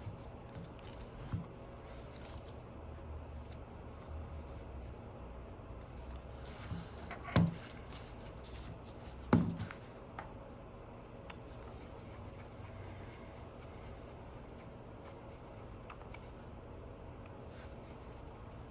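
Handling sounds from closing up an iPhone 11 after a screen replacement: three short knocks and clicks a few seconds apart as the phone and tools are handled, over a low steady hum.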